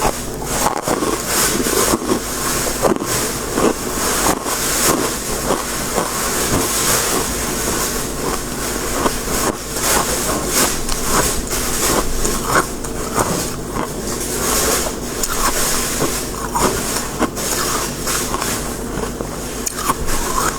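Close-miked crunching of crisp freezer frost, a dense, unbroken run of crackles and crunches.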